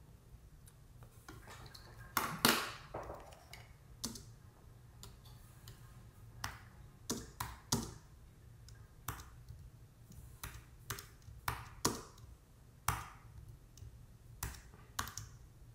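Slow, irregular keystrokes on a computer keyboard: faint single key clicks, often a second or more apart, with one louder click about two seconds in.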